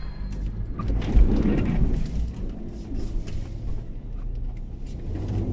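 Nissan Pathfinder R50 being driven off-road: a steady low rumble of engine, tyres and wind, with scattered light knocks.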